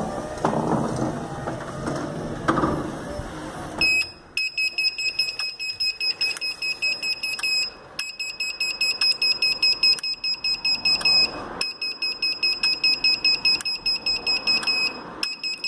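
Gliderol electric garage door opener: the drive runs for about four seconds, then stops, and the control unit starts rapid, high-pitched beeping in runs of about three seconds with short gaps, along with sharp relay clicks. This clicking and beeping is the fault that comes on once the door is closed, and resetting the remote, obstruction sensitivity and limits has not cured it.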